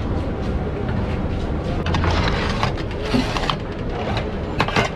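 Busy street-food stall ambience: a steady low rumble with scattered sharp clicks and knocks of clattering utensils, the loudest few close together near the end.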